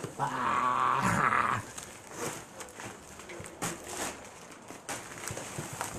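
Plastic wrapping and a cardboard shipping box crinkling and rustling in scattered crackles as a wrapped item is pulled out. This follows a short, loud vocal sound in the first second and a half.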